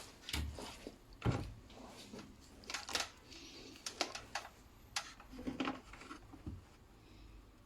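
Irregular clicks, taps and knocks of small parts and tools being handled, with a few brief scratchy rasps in between.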